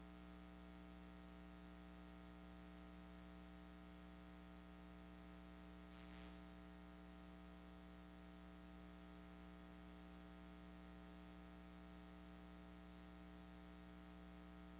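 Near silence: a steady low electrical hum and hiss, with one short faint rush of noise about six seconds in.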